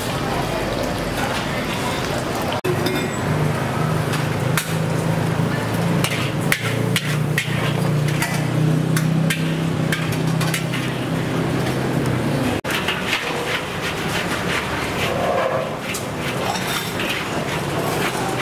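Food-stall kitchen clatter: repeated sharp knocks of utensils over a steady background din, with a low hum that starts about three seconds in and stops after about twelve seconds.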